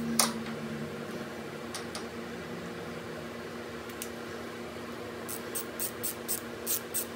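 One sharp metallic click about a quarter second in, then near the end a run of light clicks, about four a second, from a hand tool working the T27 Torx bolts of the timing chain tensioner on a Milwaukee-Eight 114 engine.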